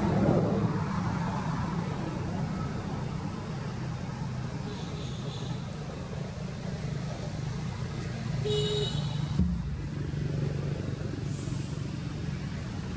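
Steady low drone of motor traffic running, with a brief high-pitched chirp about eight and a half seconds in and a short knock just after.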